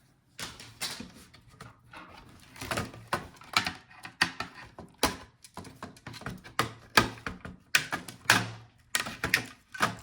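Laptop parts being handled during disassembly: a quick, irregular run of clicks, taps and short scrapes of plastic and metal pieces.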